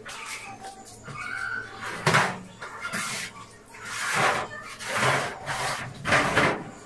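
Kitchen items being handled and moved during a clean-up, heard as a series of short rustling, scraping swells about a second apart.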